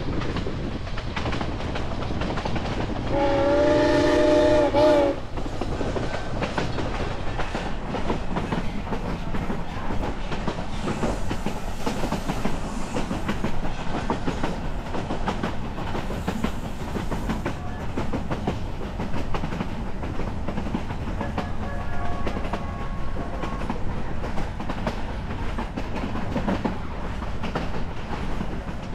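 Narrow-gauge train coach rolling along with a steady rumble and the clickety-clack of its wheels over rail joints. About three seconds in, the steam locomotive's whistle gives one loud blast of about two seconds.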